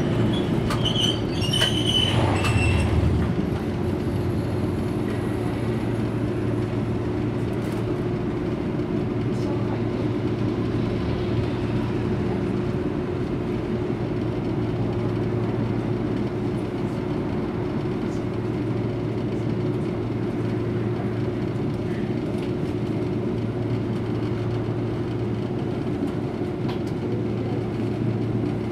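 Inside a Toyohashi Railway 3500-series tram standing still: a steady low hum from the car's onboard equipment, with a few brief higher sounds and a low rumble in the first three seconds as it settles to a stop.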